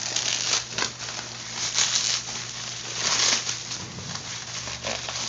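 Packaging wrap crinkling and rustling as a thickly wrapped parcel is pulled open by hand, in uneven bursts with the loudest about two and three seconds in.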